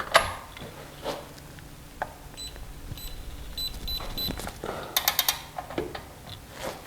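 Hand tools tightening a front control-arm bolt: metal clinks and knocks, a sharp click at the start and a quick run of about five ratchet-like clicks about five seconds in. In the middle there is a series of short, high electronic beeps.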